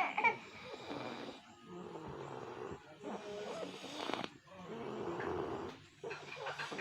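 A person snoring in a regular rhythm, about five rasping breaths, each roughly a second and a half long. Some snores carry a wavering, voice-like tone.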